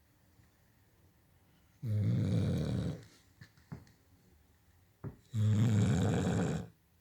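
Blue-nose pit bull snoring in her sleep: two snores, each a little over a second long, about three and a half seconds apart, with a few faint ticks in the quiet between them.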